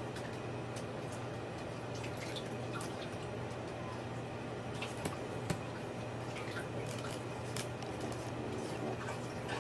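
Steady low hum of room tone with scattered faint clicks and ticks, the sharpest a little after five seconds in.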